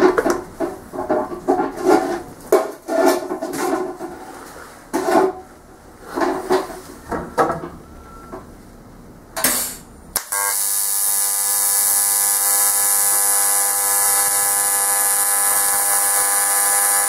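AC TIG welding arc on thin aluminum sheet, struck about ten seconds in and held as a steady, high electric buzz while a tack weld is made. Before it, a few short knocks and rustles as the torch is set in place.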